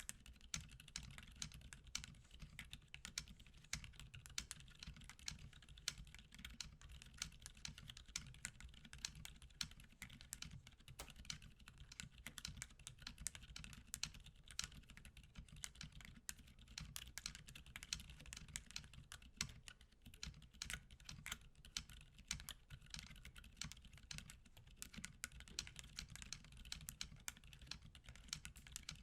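Typing on a mechanical keyboard with lubed Gazzew Boba U4 silent tactile switches, PBT keycaps, in an aluminium Tofu 65 case: a steady run of quiet, muted keystrokes.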